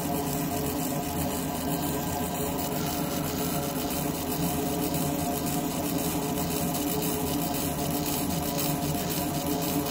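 Fiber laser engraver marking a metal handcuff, making a steady buzz with several held tones as the beam sweeps the pattern in rapid repeated passes.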